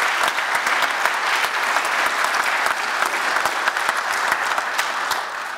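Audience applauding, a dense, steady patter of many hands clapping that fades out near the end.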